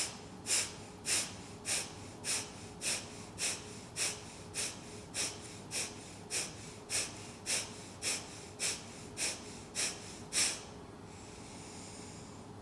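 A woman doing kapalabhati yoga breathing: about nineteen sharp, forceful exhalations through the nose, a little under two a second, stopping about ten seconds in. A slower, quieter inhale follows near the end.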